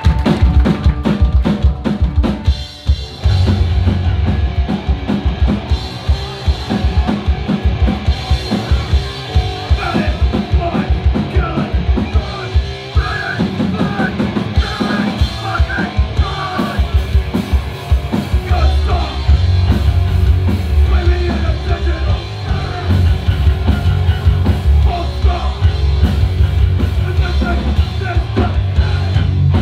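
Live rock band playing loud and fast: a busy drum kit with electric guitar and bass, kicking in abruptly.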